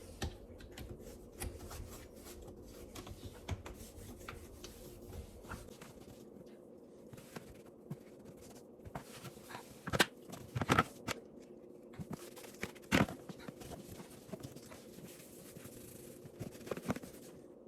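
Damp cloth wiping and rubbing down a dishwasher's parts: faint scuffing and small clicks of handling, with a few sharp knocks about ten and thirteen seconds in.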